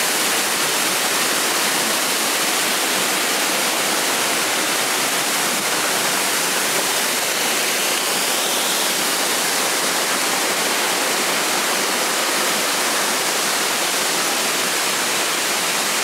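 Waterfall splashing steadily: a constant, even rush of falling water.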